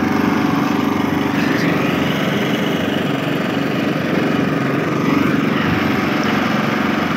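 Small single-cylinder engine running steadily, driving a sugarcane juice crusher as cane is fed through the rollers.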